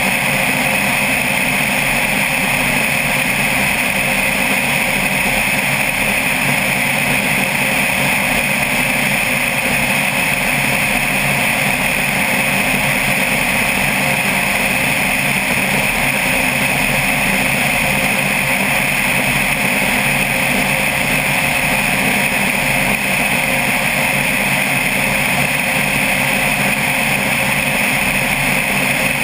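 Single-engine light aircraft's engine and propeller running steadily in flight, heard from a camera mounted outside the cabin: a loud, unbroken drone.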